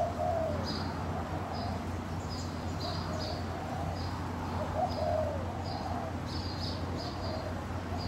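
Doves cooing: a few short, soft, arching coos, with small birds giving quick high chirps throughout, over a steady low hum.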